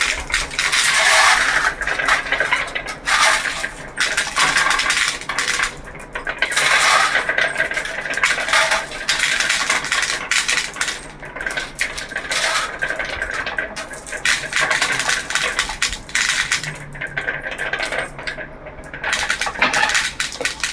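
Marbles rolling and clattering down a marble run: a dense, continuous rattle of small clicks that swells and eases, with the busiest stretches in the first few seconds and near the end.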